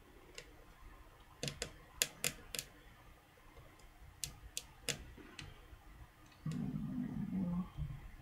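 Small sharp clicks and taps of a small Phillips screwdriver and tiny screws against an iPhone 3G's case during reassembly, about ten in the first five and a half seconds. About six and a half seconds in, a low hum lasts for about a second.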